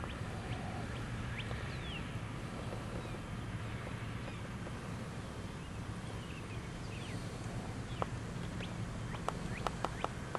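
Steady low hum of a moving vehicle heard from inside, with faint short chirps scattered throughout and a quick run of sharp clicks near the end.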